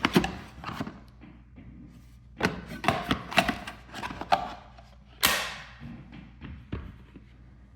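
Handling noise from unboxing a smart lock: a series of light knocks and thumps as the lock's parts are lifted and set down in their packaging, with one louder, sharper knock about five seconds in.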